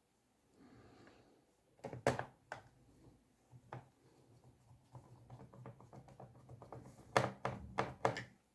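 Faint, scattered clicks and taps of a small screwdriver driving screws into a laptop's plastic bottom case, growing busier and louder near the end.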